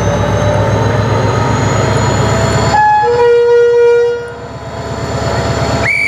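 Irish Rail 071 class diesel locomotive's engine running with a steady low drone and a faint, slowly rising high whine. About three seconds in, a train horn sounds loudly: a brief higher note, then a lower note held for about a second. A short, high-pitched whistle tone starts near the end.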